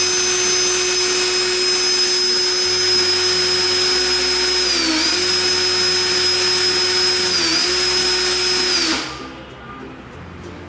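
DeWalt 18V XR cordless hammer drill running with no load at full speed for a speed test, a steady high motor whine with two brief dips in speed, about five and seven and a half seconds in. It spins down and stops about nine seconds in.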